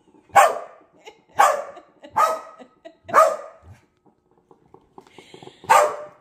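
A corgi barking five times in sharp single barks, with a longer pause before the last. He is barking at the coffee maker brewing.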